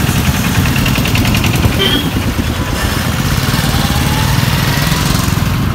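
Yamaha R15's single-cylinder engine running at low speed as the motorcycle rides through traffic, a steady low engine note mixed with road and traffic noise.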